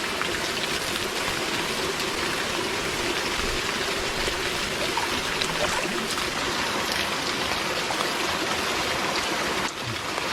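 Steady rush and splash of water running into a small hot spring pool from a hot water pipe and a warm waterfall.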